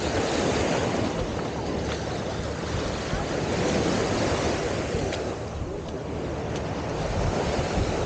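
Small surf breaking and washing up on a sandy beach, a steady rushing that swells and eases, with wind buffeting the microphone.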